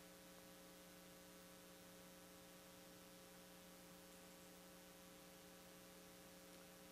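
Near silence: a steady electrical mains hum, several low tones held at an even level over faint hiss.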